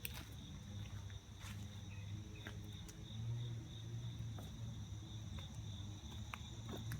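Steady outdoor insect chorus: a continuous high-pitched chirring, with a few faint scattered clicks.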